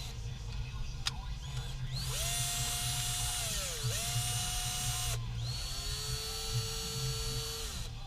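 Electric power drill running in two bursts of a few seconds each, a high whine that sags in pitch briefly during the first run, as when the bit meets load.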